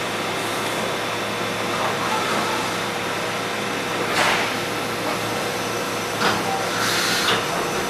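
2005 Mazak Integrex 400-III ST CNC turning center machining a part under flood coolant: a steady mechanical whir with a faint constant hum and the hiss of coolant spray. Brief louder bursts of hissing come about four seconds in and again a little before the end.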